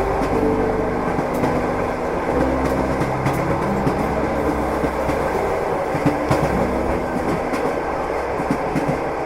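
Train carriage rolling along the rails: a steady rumble with the occasional clickety-clack knock of the wheels over rail joints.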